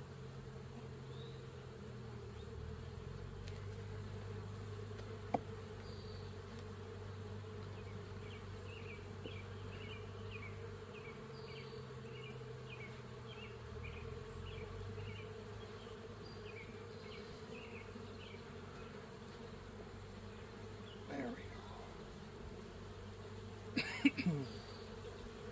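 Honeybees buzzing in a steady low drone around an open hive. Near the end come a few sharp cracks and creaks as a stuck wooden frame is pried loose and lifted out, with a short run of high chirps earlier on.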